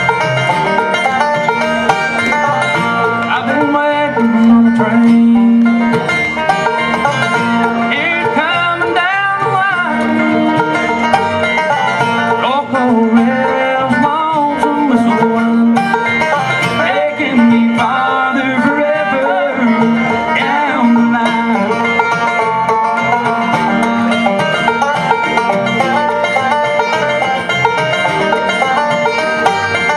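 Bluegrass band playing live: banjo picking over mandolin and strummed acoustic guitar, a steady up-tempo tune.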